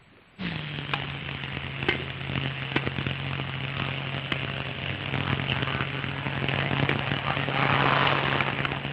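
Steady low hum with hiss and scattered crackles from an old newsreel film soundtrack; the sound cuts out for a split second at the very start.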